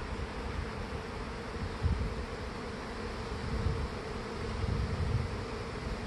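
A swarm of honey bees in flight overhead, a steady hum. The colony has swarmed out of a hive that ran short of space.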